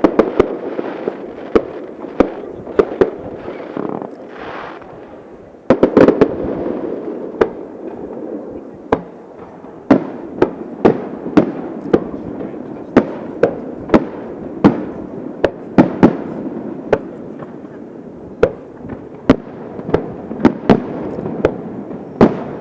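Fireworks bursting one after another: many sharp bangs at irregular intervals over a continuous rolling rumble of echoes, with a sudden loud cluster of bangs about six seconds in.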